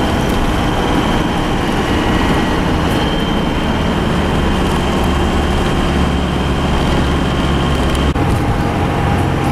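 Motorhome driving, heard from inside the cabin: steady engine and road noise with a low hum and a constant high whine, and a short click about eight seconds in.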